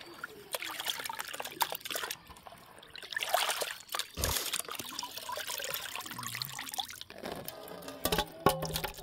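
Water sloshing, splashing and trickling as hands wash raw chicken pieces in a plastic bucket, with a dull bump a little past four seconds in. Near the end the lifted pieces drip water.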